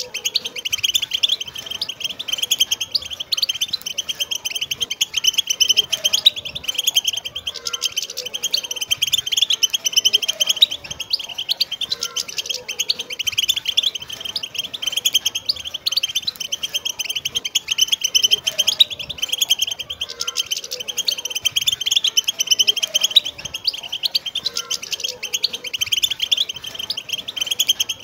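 Wild European goldfinches singing together, a dense, unbroken stream of rapid high twittering and chirping calls.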